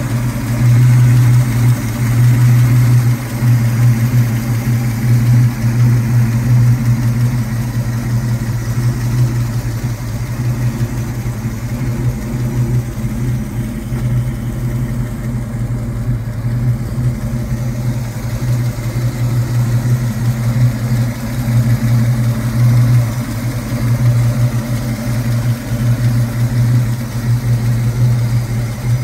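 1967 Ford Mustang GT's S-code 390 cubic-inch big-block V8 idling steadily, heard at the open engine bay.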